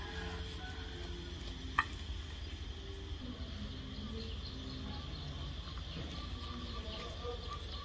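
Quiet background ambience: a steady low hum and a faint steady high-pitched drone, with one sharp click about two seconds in.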